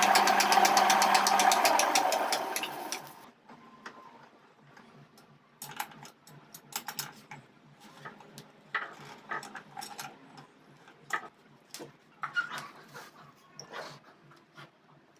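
A power tool runs loudly with a fast, even chatter and stops about three seconds in. After it come scattered light clicks and knocks, as of a workpiece or tools being handled.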